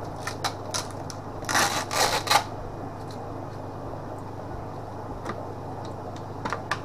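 Clear plastic hinged box being handled and its lid unclipped: a few sharp clicks, then a loud cluster of plastic crackles and snaps about one and a half to two and a half seconds in, and two more clicks near the end.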